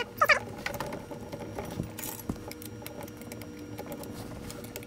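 Small clicks, taps and light knocks of metal parts being handled as an R8 spindle cartridge is fitted into a Taig mill's spindle mount, with two short squeaks right at the start.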